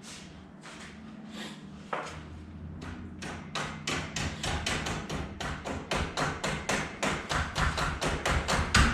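Small ball-peen hammer tapping on the metal end fitting of a Wayne Dalton Torquemaster Plus spring tube to knock it loose. A few scattered taps, then quick, steady tapping at about four a second from about three seconds in.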